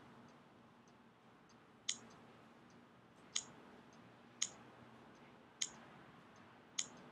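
Five sharp clicks about a second apart as an Android phone's touchscreen arrow is tapped to step through clock widget styles.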